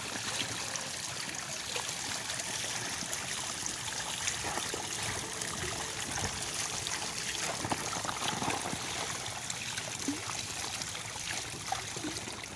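Water trickling and splashing steadily, with many small splashes and clicks scattered through it.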